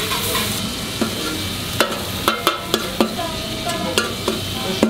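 Chopped beef for tantuni sizzling in a large shallow metal pan while a metal spoon stirs it, with a few sharp clicks of the spoon against the pan in the second half.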